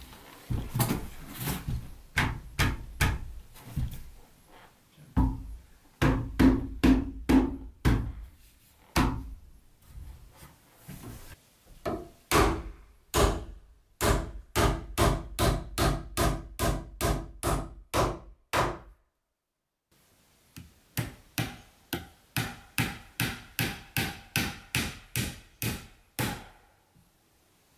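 Hammer driving nails into wooden boards: runs of sharp, evenly spaced blows at about two to three a second, with short pauses between runs. After a sudden break about two-thirds of the way through, another run of lighter strikes follows with a ringing tone.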